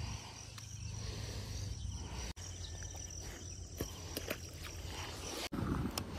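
Outdoor ambience: a steady high insect buzz over a low rumble, with a few light clicks and rustles near the end. The sound drops out for an instant twice.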